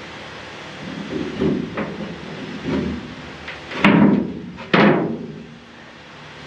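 Wooden board being knocked and banged into place inside a barge's steel engine room: a few light knocks, then two loud bangs about a second apart, each with a short ringing tail.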